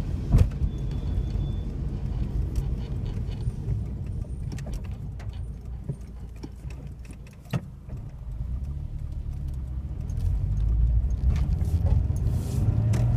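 Car driving on a wet street, heard from inside the cabin: a steady low engine and road rumble with scattered clicks and small rattles, growing louder near the end.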